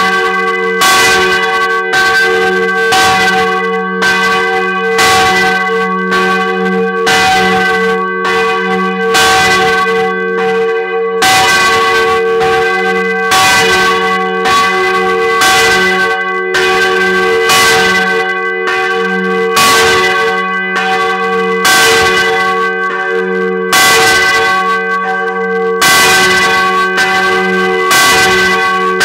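The ges' bell 'Maria', a 785 kg bronze church bell cast in 1950 by F.W. Schilling of Heidelberg, swinging and struck by its clapper about once a second, heard close up in the bell chamber. Its deep hum and higher partials ring on between the strokes.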